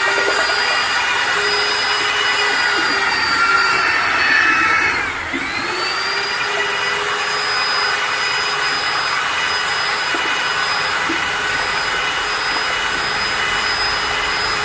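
Electric grinder running at full speed with a high, steady whine. Its pitch dips briefly about five seconds in and climbs back, and it starts to wind down at the very end.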